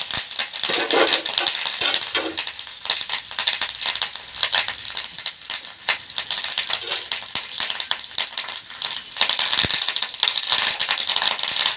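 Curry leaves, shallots and mustard seeds sputtering and crackling in hot coconut oil in a kadai: a tempering frying hard. The crackle is loudest at the start, eases off in the middle, and picks up again near the end.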